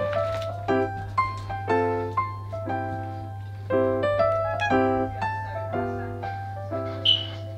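Background piano music, notes and chords struck about twice a second over a steady low hum, with one short sharp high sound near the end.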